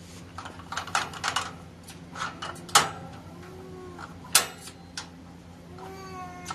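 Light clicks and clatters, several times over. A domestic cat gives a faint meow about halfway through and a clearer meow near the end.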